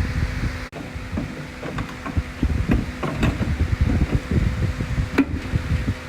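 Irregular knocks, clicks and clatter from tools and parts being handled, over a steady hum.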